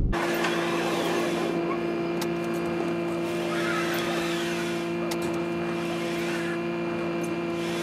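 Small electric utility cart's motor whining steadily as it is manoeuvred back and forth, with a few rising and falling squeals. It starts and cuts off suddenly.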